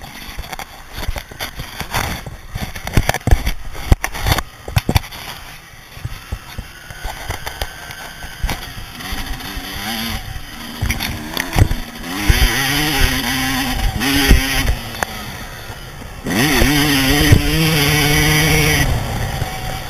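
Motocross dirt bike ridden hard over a rough track, heard from a camera mounted on the bike. First come a string of sharp knocks and rattles over the bumps. Then the engine revs up and down several times, with the longest, loudest pull near the end.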